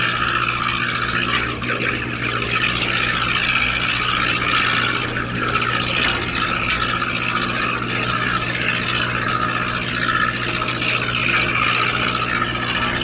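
Charter fishing boat's engine running steadily, a low even hum, under a constant hiss.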